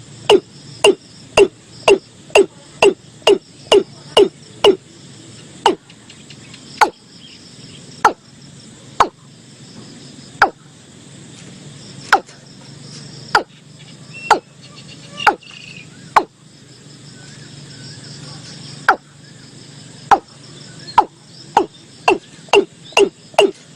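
Watercock calling: a long series of short, hollow notes that drop quickly in pitch, about two a second at first, spacing out in the middle and quickening again near the end. Faint insects or frogs keep up a steady background.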